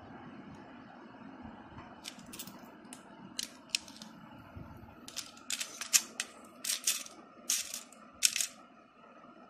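Short hard plastic pipe pieces and beads clicking and rattling against one another and the plate as a hand picks through the pile. Scattered clicks start about two seconds in and come thicker and louder in the second half.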